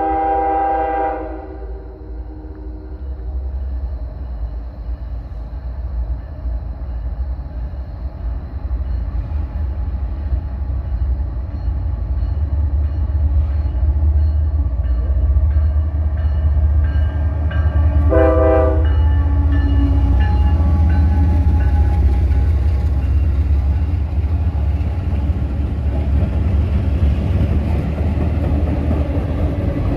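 Freight train's diesel locomotive approaching and passing. Its air horn sounds at the start and stops about a second and a half in. The low engine rumble then builds as the train nears, a second short horn blast comes a little past halfway, and the locomotive and cars run past loudly near the end.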